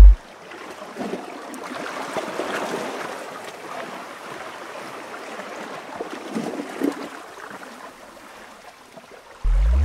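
Shoreline ambience: an uneven wash of water lapping against rocks, with wind. Just before the end a loud, deep synthesized tone begins, rising in pitch.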